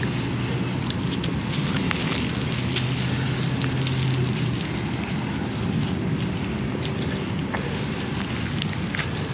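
Wind rushing on the microphone, with scattered crackles and clicks as a gloved hand works wet mud out from around a lawn sprinkler head. A low steady hum underneath stops about halfway through.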